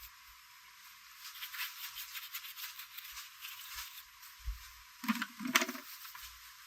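Quick light clicking and rattling, then a louder clatter of two or three knocks about five seconds in.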